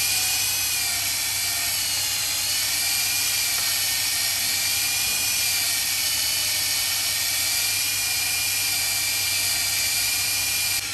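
Electric drill running steadily at high speed, spinning an engine valve against its seat to lap (grind) it into the cylinder head; the whine wavers slightly in pitch and cuts off right at the end.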